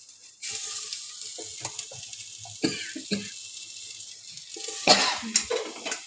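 Chopped potatoes sizzling as they hit hot oil and chillies in an aluminium pressure cooker, a steady hiss starting about half a second in. A person coughs a few times over it, loudest near the end.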